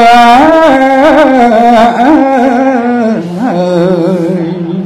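A man's solo voice chanting Khmer smot, Buddhist chanted poetry, in long held notes with wavering, ornamented turns. About three seconds in the melody steps down to a lower note and holds there, growing quieter.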